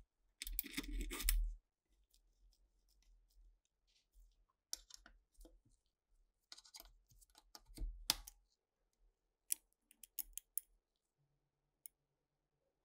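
Scattered light clicks, taps and small rattles of a disassembled tape recorder's metal chassis and parts being handled, with a brief scraping rustle about a second in, the loudest sound.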